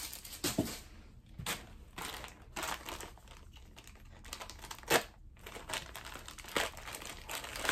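Plastic mailer bag crinkling and rustling in irregular crackles as it is handled and cut open, the sharpest crackle about five seconds in.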